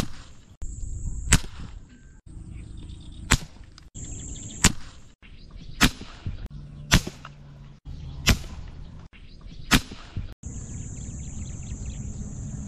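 A string of sharp snaps from a homemade rubber-band-powered fishing spear (tiksay) being shot at fish. There are about eight separate shots, one every one to two seconds, with abrupt cuts between them and a steady high insect drone behind.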